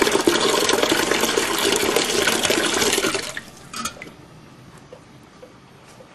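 Water pouring in a steady stream into a slow cooker lined with a plastic liner, stopping a little after three seconds in, followed by a brief last trickle.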